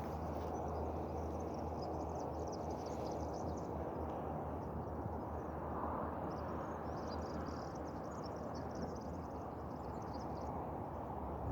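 Steady outdoor background noise with a low hum, and two stretches of faint high-pitched chirping, the first near the start and a longer one from about six seconds in.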